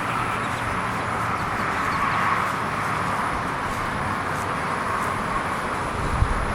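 Steady outdoor street noise of traffic, with a low vehicle rumble building near the end and a single short click just before it.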